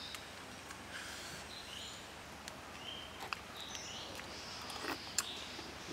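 Quiet outdoor background with scattered short, high bird chirps and a few light clicks from a metal spoon scooping egg out of a red bell pepper.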